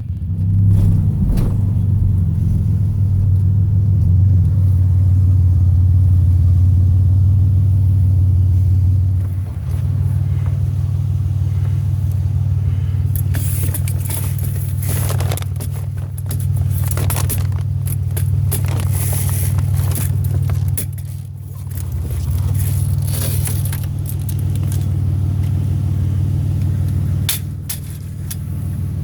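Car engine and road rumble heard from inside the cabin while driving: a steady low drone, with scattered rattles and clicks in the middle stretch.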